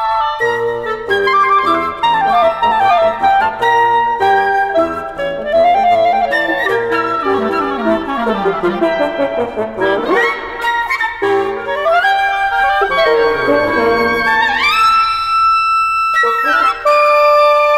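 Woodwind quintet of flute, oboe, clarinet, horn and bassoon playing the fast closing bars of a piece. It moves in quick rising and falling runs, with rising glides about fifteen seconds in, and ends on a loud held chord near the end.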